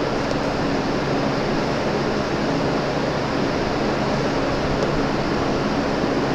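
Steady rushing noise of a room fan running, with a faint low hum underneath.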